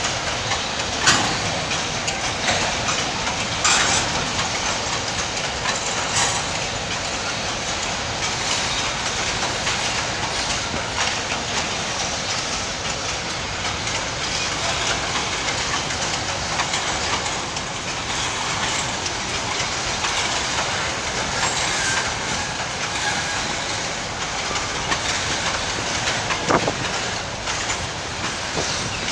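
Freight wagons of a long train rolling past, steel wheels clattering steadily over the rails, with a few sharp knocks and clanks along the way.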